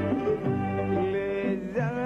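Sudanese band music between sung lines: held melodic notes, with bowed strings such as violins carrying the tune. A new melodic line, likely the singer's voice returning, enters near the end.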